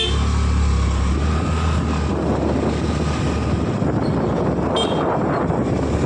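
Honda Activa scooter's single-cylinder engine running as the scooter pulls away and gathers speed, with wind noise on the microphone growing as it goes. The low engine note fades under the wind about four seconds in.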